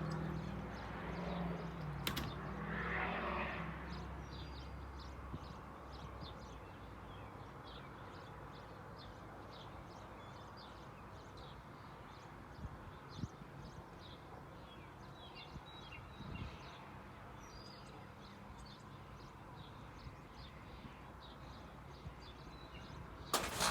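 Outdoor ambience with small birds chirping on and off. A low engine-like hum fades out over the first few seconds, and a sudden loud rustle or knock comes near the end.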